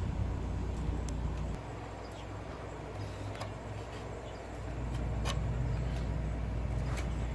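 A low, steady engine rumble, like a motor vehicle running nearby, easing off for a few seconds in the middle and then coming back. A few faint clicks sound over it.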